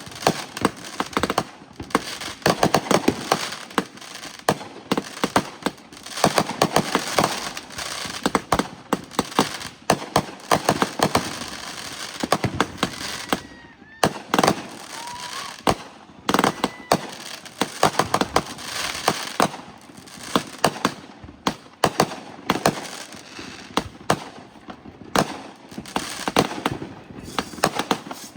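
Many fireworks and firecrackers going off together: a continuous, irregular barrage of sharp bangs and pops, thinning briefly around the middle, with a couple of short whistling glides.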